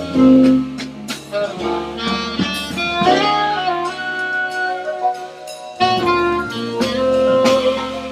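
Jazz combo playing live: a melody line of long held notes over piano, bass and drums, with a few sharp cymbal or drum strikes.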